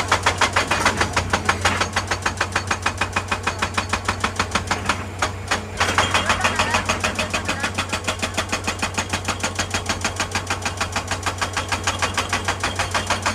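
Excavator-mounted hydraulic breaker hammering rock in a fast, even stream of blows, about eight a second, over the steady hum of the excavator's diesel engine. The blows stop briefly about five and a half seconds in, then carry on.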